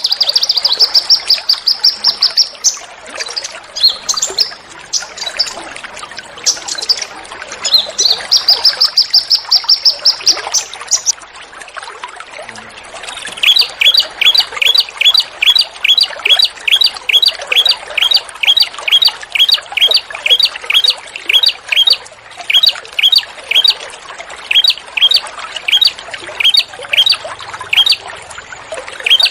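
Small songbirds giving loud, rapid call series over a background of trickling water. For the first ten seconds or so a fast, high trill comes in repeated runs; from about halfway a steady string of short down-slurred notes follows, about three a second.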